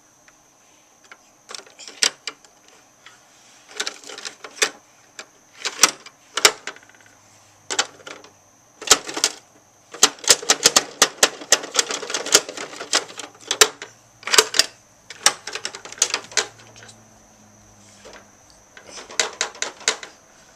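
Hard plastic clicking and clacking from a Bruder toy garbage truck's rear bin lifter and tailgate being worked by hand, with a small plastic bin knocking against it. The clicks come in irregular clusters, with a fast rattling run in the middle.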